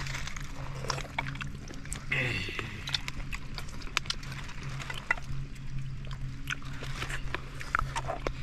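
Close-up eating sounds as buffalo leg meat and marrow are eaten by hand: wet chewing, slurping and lip-smacking clicks, with a brief hum of a voice about two seconds in, over a steady low hum.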